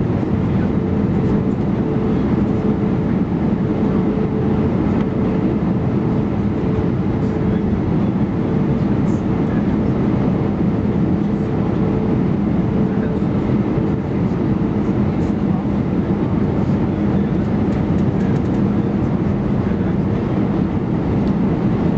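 Airbus A319-131 cabin noise: its IAE V2500 turbofan engines run steadily under a continuous rumble, with an even hum whose pitch does not change.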